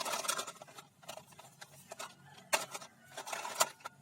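Plastic toy guns being handled: rustling, then a few sharp clicks, the loudest about two and a half seconds in and again near the end.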